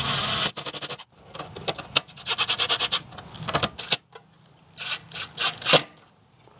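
Cordless drill driving self-tapping sheet-metal screws through a 3D-printed plastic hinge bracket into a metal door frame. It runs steadily for about the first half-second, then gives several short bursts of rapid clicking rattles with quieter pauses between them.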